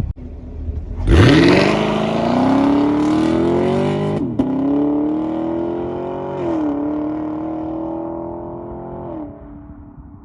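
2021 Chevrolet Camaro SS's LT1 V8 through its dual-mode exhaust in Sport mode, on a full-throttle pull. The engine note shoots up about a second in and climbs, drops at a quick gear change about four seconds in, climbs again, and drops at a second gear change. It then falls away near the end as the throttle lifts.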